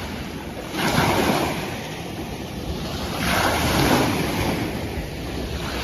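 Sea waves washing in and rushing up the shore, with wind buffeting the microphone. The surf swells louder twice, about a second in and again a little past three seconds.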